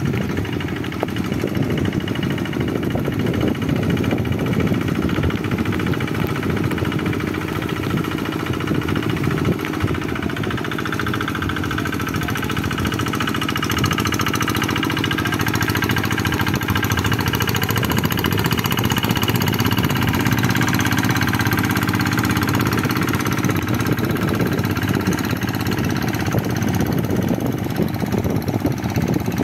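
Single-cylinder diesel engine of a G1000 two-wheel hand tractor running steadily under load with a rapid knocking beat while its iron cage wheels pull it through deep flooded paddy mud.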